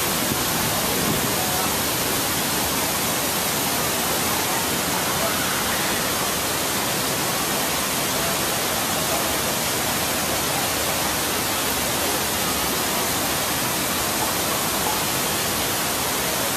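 Steady rush of water pouring and splashing into a pond: an even, unbroken hiss that never changes.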